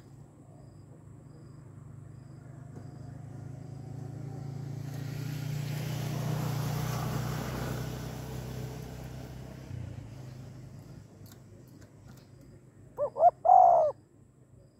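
Spotted dove giving one three-note coo near the end, two short notes and a longer last one. Before it, a low rumble swells and fades, as of a vehicle passing.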